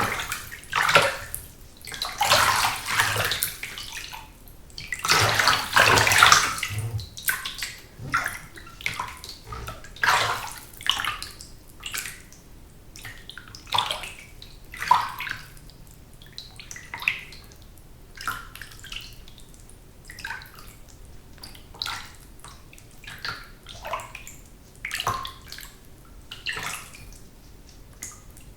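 Bath water splashing and sloshing as someone bathes in a tub. There are two long, heavy splashes in the first seven seconds, then short, irregular splashes.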